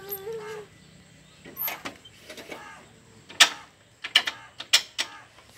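Sharp clicks and clunks from the controls of a parked compact tractor being worked by hand: lever and steering mechanisms knocking a handful of times, the loudest about halfway through, with a quick cluster of clicks near the end.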